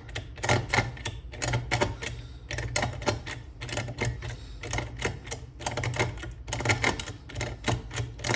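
Self-impressioning tool being worked inside a Securemme 3+3 lever safe lock: rapid, irregular metallic clicking, several clicks a second, as the tool is moved against the levers for the first impression turn.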